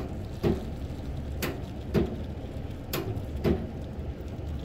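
Thin stream of hot water from a dispenser trickling into a paper udon cup over a steady low hum. Sharp clicks come at a regular, alternating beat of roughly two every second and a half.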